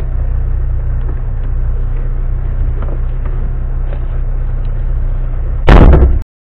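Car engine idling steadily, a low even hum heard from inside the vehicle. Near the end a loud, short noise breaks in, and then the sound cuts off suddenly.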